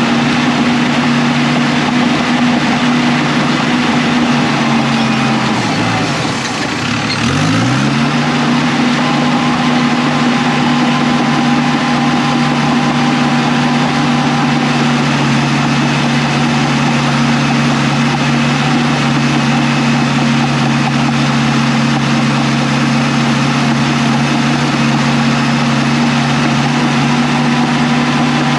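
Diesel engine of a heavy earthmoving machine running steadily at high revs. About six seconds in, its pitch drops sharply and climbs straight back up, then holds steady again.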